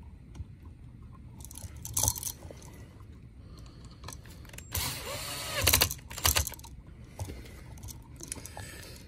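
Small clicks, rattles and scrapes of a duplex electrical outlet and its wires being handled and worked on with a screwdriver, with a louder stretch of scraping and rubbing about five seconds in.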